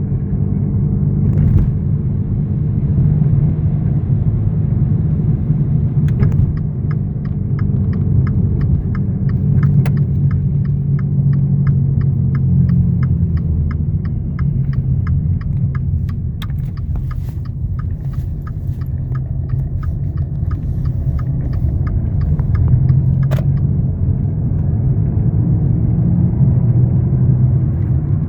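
A steady low hum, heard as a vehicle's running noise. From about six seconds in until near the end, an even ticking rattle of about three strikes a second runs over it. This is the unexplained humming and rattling noise the owner is asking about.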